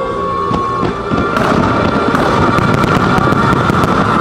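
Fireworks bursting over the show's soundtrack music, with a rapid flurry of sharp crackles starting about a second and a half in over a continuous low rumble of booms.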